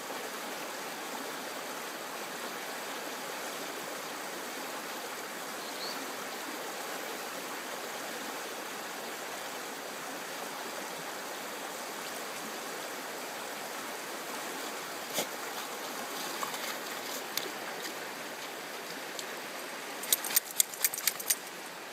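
Shallow stream running steadily over stones. Near the end comes a quick run of sharp flapping slaps as a wet golden retriever shakes the water off its coat.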